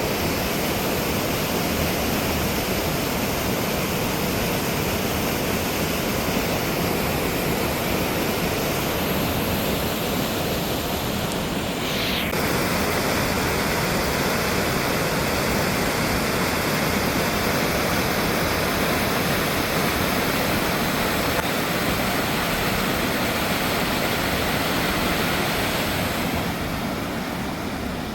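Water gushing steadily out through the raised flood gates of a reservoir dam, a loud continuous rush of falling water. The sound changes slightly about twelve seconds in.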